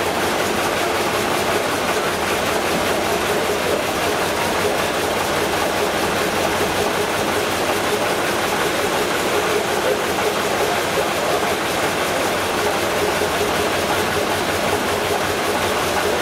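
Large multi-cylinder hot-bulb stationary engine running steadily, an even mechanical clatter, with its blowlamps burning to heat the hot bulbs.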